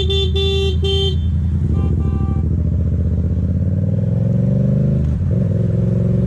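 Motorcycle engine running under a vehicle horn that beeps three times in quick succession, then twice more, fainter. About five seconds in, the engine note dips briefly and then rises again.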